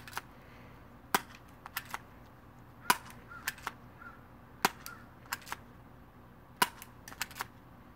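Spring-powered airsoft pistol firing single shots, a sharp snap about every two seconds, with lighter clicks between the shots.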